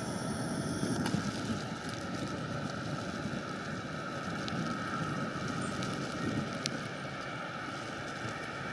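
Steady wind noise on the microphone over a low, even rumble.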